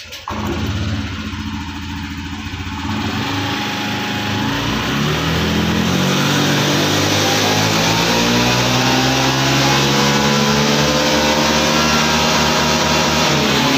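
Honda Scoopy's 110 cc single-cylinder scooter engine at full throttle on a dyno, its pitch and loudness climbing steadily for about ten seconds as the automatic transmission carries the rear wheel up through the speeds, then easing off slightly near the end. This is the baseline run on the stock engine map, before the ECU is remapped.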